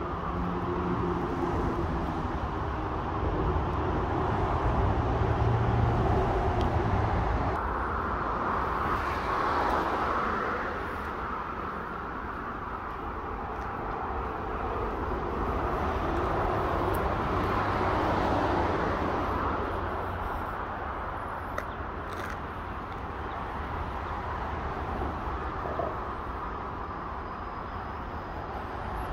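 Steady outdoor rumble of distant road traffic, swelling and fading, with a low engine hum in the first seven seconds or so.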